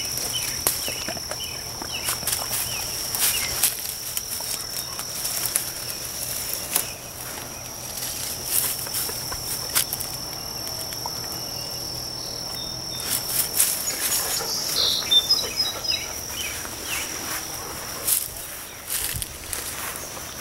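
A steady high insect trill, like crickets, with irregular rustling and crackling of leaves and stems as a dog pushes its nose through blackberry brambles. The crackling is busiest in the second half.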